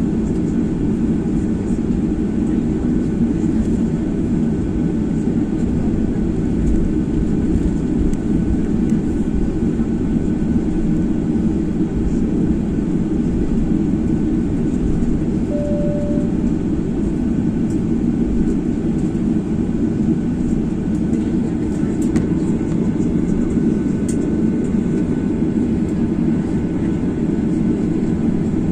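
Steady cabin noise inside a Boeing 737-800 airliner: a constant low rumble of the jet engines and airflow that neither rises nor falls. A short single tone sounds about halfway through.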